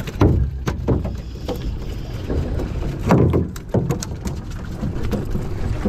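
Steady low rumble of a small fishing boat's engine on the water, with irregular splashes and knocks against the hull.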